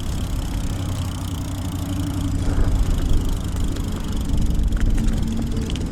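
Recumbent trike rolling along a trail: a steady low rumble of tyres and drivetrain, with a faint steady hum and a few small clicks.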